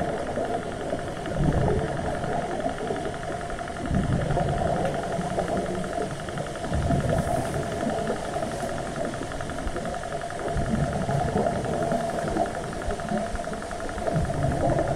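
Underwater noise heard through a camera housing: a steady mechanical hum with a fine rapid ticking, and low rumbling surges every few seconds.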